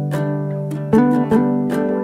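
Background music: a guitar-like plucked string instrument playing a tune, with a few new notes struck over ringing earlier ones.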